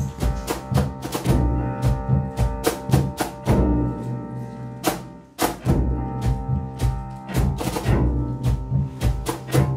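Live instrumental music: bowed cello and piano holding sustained notes, cut through by frequent deep strokes on a large metal-shelled drum struck with a mallet, with a drum kit behind. The playing thins briefly about five seconds in, then the drum strokes come back.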